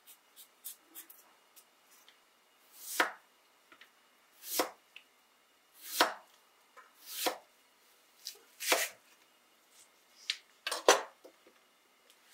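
Kitchen knife slicing Korean radish (daikon) on an end-grain wooden cutting board: a slow series of separate cuts, about one every second and a half, each ending in a knock of the blade on the board. A few faint ticks come before the first cut.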